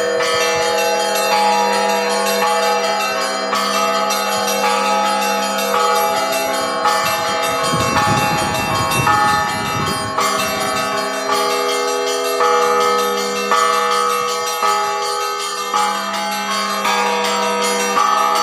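Church bells of an eight-bell Orthodox belfry ringing continuously, with quick repeated strikes on the smaller bells over the long, sustained ringing of the deeper bells.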